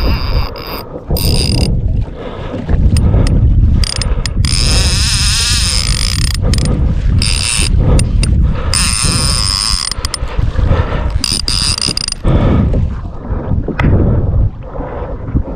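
Fishing reel ratcheting and clicking in uneven spells, over a heavy low rumble of wind and handling on the microphone.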